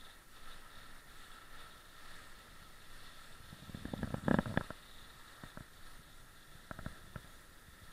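Dog sled running over a packed snow trail: a low, faint sliding noise, with a short cluster of knocks and rattles about four seconds in and a few more single knocks near the end.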